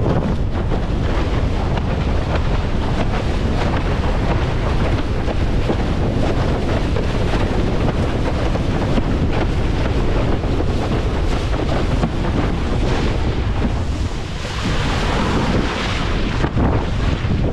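Strong wind buffeting the microphone of a camera on a windsurfing rig, over the steady rush of choppy water along the board. About fourteen seconds in the wind noise drops briefly, then a brighter rush of water and spray follows.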